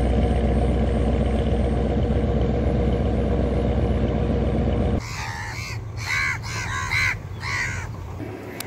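A loud, steady low rumble that stops abruptly about five seconds in. Then crows give a quick run of about seven caws.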